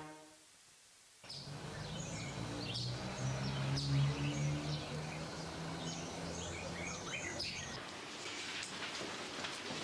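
Birds chirping with many short high calls over a low steady hum, starting suddenly about a second in after near silence.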